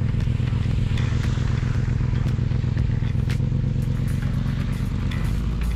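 Toyota SUV's engine idling steadily, a low even hum, with light scattered clicks and crackles over it.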